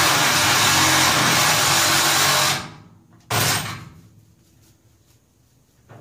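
Angle grinder cutting through a steel exhaust pipe, a loud steady hiss that stops about two and a half seconds in as the grinder is let off. A second short burst of grinding follows about a second later.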